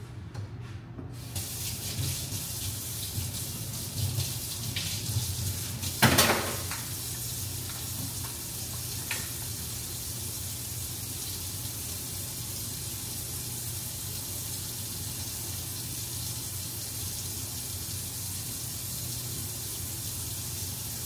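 Turkey burger patties sizzling in a hot pan, a steady hiss that starts suddenly about a second in. A few knocks and one sharp clatter of cookware about six seconds in.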